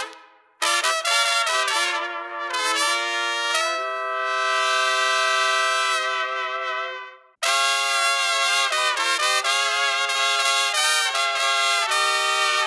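Solo trumpet playing a melodic phrase: a run of notes, then one long held note, a short breath break about seven seconds in, and another run of notes that fades just before the end.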